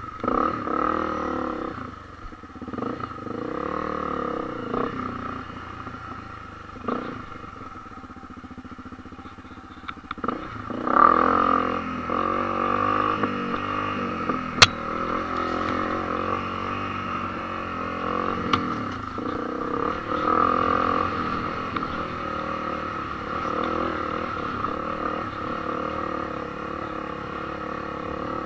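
Honda CRF250L dirt bike's single-cylinder four-stroke engine running while riding over rock and trail, its pitch rising and falling with the throttle. It gets louder from about eleven seconds in. A single sharp knock comes about halfway through.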